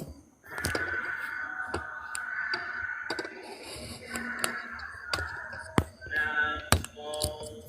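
A voice chanting in long, drawn-out held tones, with scattered sharp clicks.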